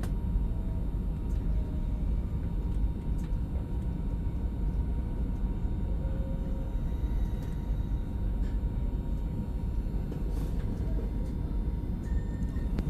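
Passenger train running along the track: a steady low rumble with a few faint clicks.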